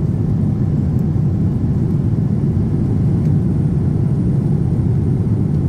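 Steady low rumble of a Boeing 787-10 airliner cabin in flight: engine and airflow noise.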